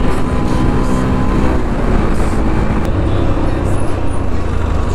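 Motorcycle engine running steadily at full throttle while riding, over road and wind rush. The engine runs smoothly with no extra noise.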